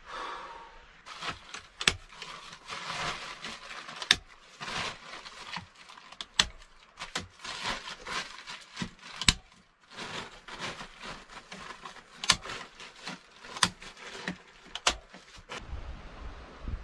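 Handling noise: rustling with many scattered sharp clicks and knocks as someone moves about, touching the plastic sheeting and wooden poles of a log hut's roof. Near the end a low rumble of wind on the microphone comes in.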